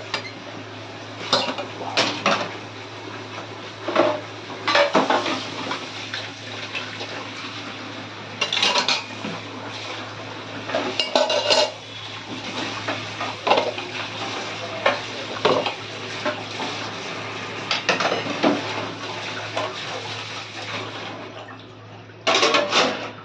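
Stainless steel utensils and bowls clattering and clinking against one another as they are washed, in many irregular knocks, over the steady rush of running tap water.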